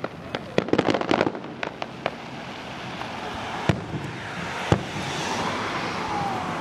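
Fireworks going off: a rapid string of sharp cracks about a second in, then single bangs here and there, and a crackling hiss that grows louder over the second half.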